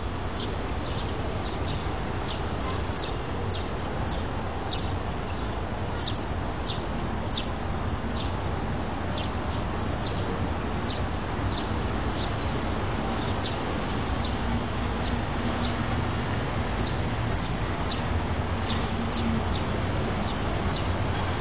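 Short high chirps repeating irregularly, about two or three a second, over a steady low rumble and hiss of outdoor background noise.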